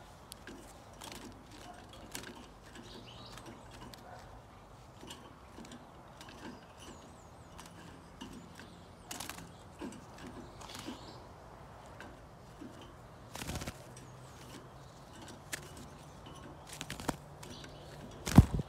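Faint scattered clicks and rustles of hands handling a small bird close to the microphone, with a knock about two-thirds of the way in and a louder thump near the end.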